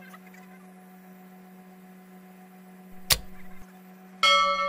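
A bell-like chime from a subscribe-banner sound effect sets in suddenly near the end and rings on with several clear tones, slowly fading; a sharp click comes about a second before it. A steady low hum runs underneath.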